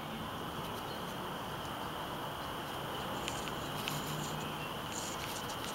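Quiet ambience with steady high-pitched insect chirring, typical of crickets, over a faint hiss, with a few faint clicks.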